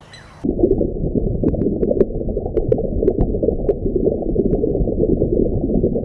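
Muffled underwater ambience: a dense, dull rushing of water with scattered faint clicks, starting about half a second in.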